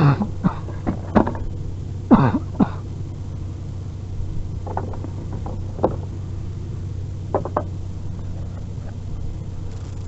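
Vehicle engine idling with a steady low hum, with a scatter of short knocks and clunks over it, several in the first few seconds and a few more later.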